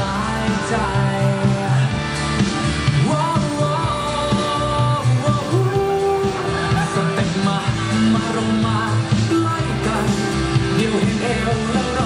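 Thai pop song with singing, played loud through stage loudspeakers.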